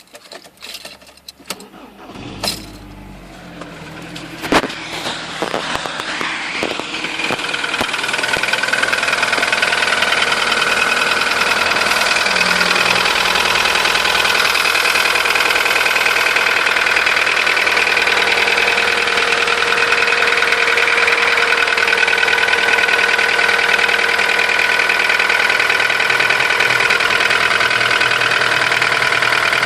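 Volkswagen Golf 1.4 16V four-cylinder petrol engine: a few sharp knocks in the first seconds, then the engine running, growing louder over several seconds and then holding steady with a rapid knocking clatter. The owner says the knock is violent when cold, fades once warm and doesn't change with the oil filler cap open, and suspects piston slap.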